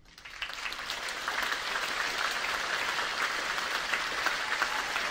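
Audience applauding at the end of an opera duet: the clapping breaks out at once, swells over the first second and settles into dense, steady applause.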